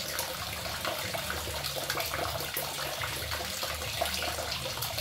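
Water running from a kitchen tap into the sink while something is rinsed and scrubbed by hand, with small splashes and knocks.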